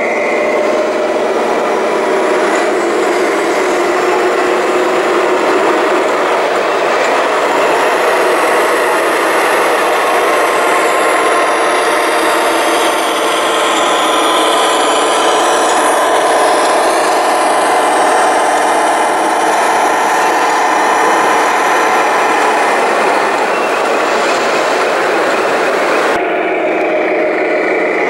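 Radio-controlled scale model trucks running, a steady mechanical rumble with a wavering engine-like tone.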